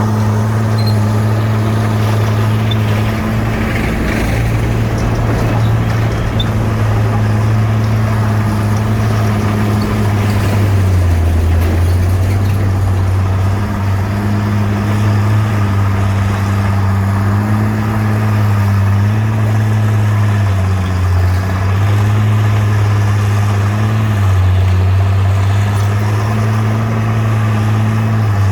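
Heavy diesel bulldozer engine running hard with a steady low drone. From about eleven seconds in, its pitch dips and recovers several times.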